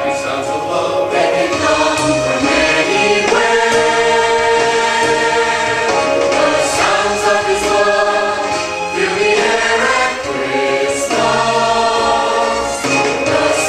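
A choir singing, with long held chords that change every second or two.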